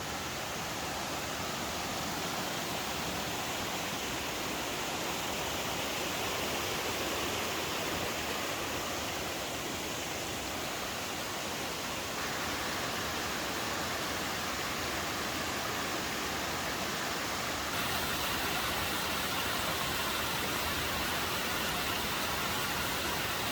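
Waterfall on a mountain stream rushing steadily, an even hiss of falling water, changing slightly in level about 12 and 18 seconds in.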